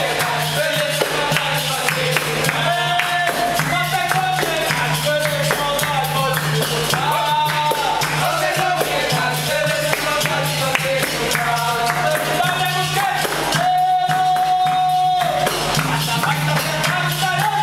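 Capoeira roda music: voices singing over berimbau, atabaque drum and pandeiro tambourine, with steady hand clapping from the circle.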